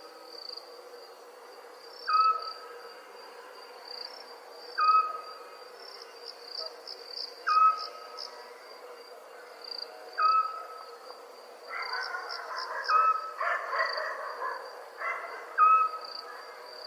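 Night ambience of crickets chirping steadily, with an animal's short call repeated about every two and a half seconds. A busier stretch of overlapping calls comes about twelve seconds in.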